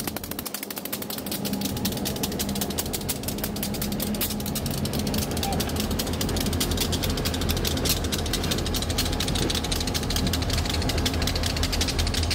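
EMD GP38-2 diesel locomotives moving slowly at yard speed, their engines rumbling and growing louder as they approach, with a rapid, even clicking and rattling over the top.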